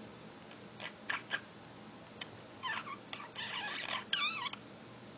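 Pet budgerigar chattering: a few short high chirps, then a short gliding call and a scratchy chatter, and a quick run of wavering whistles near the end.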